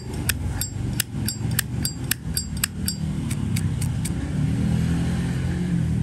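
Zippo lighter's hinged lid flipped open and snapped shut over and over, a quick train of sharp metallic clicks, each with a short high ping, about three a second, stopping about four seconds in.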